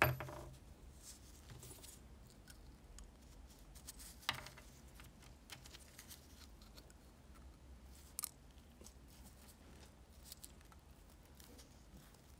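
Small brass and steel lighter parts handled on a workbench: a knock at the start as a threaded steel rod is set down, then light metallic clicks and taps, sharpest about four and eight seconds in.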